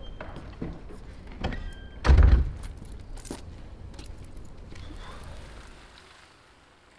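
A heavy street door thudding shut about two seconds in, with a few lighter knocks around it. The sound fades away near the end.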